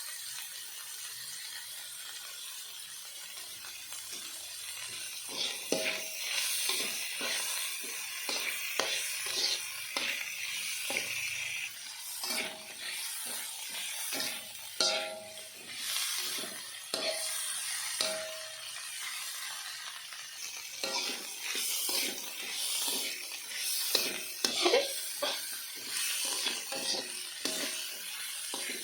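A stir-fry sizzling in a metal pan. From about five seconds in, a spatula repeatedly scrapes and knocks against the pan as the food is stirred, with brief metallic rings.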